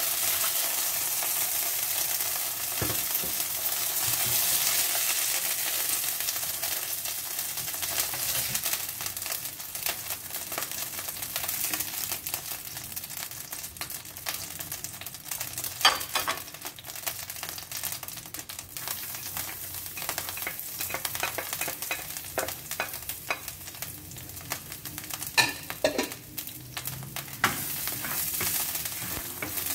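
Oil sizzling in a frying pan: cornstarch-coated chicken pieces frying, louder in the first half, then minced garlic sizzling as it is stirred with a spatula near the end. A few sharp clicks of the utensil against the pan around the middle and later on.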